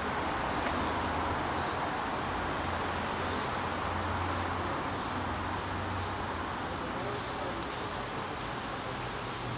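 Steady outdoor background noise with a low hum, and short high chirps repeating every half second to a second.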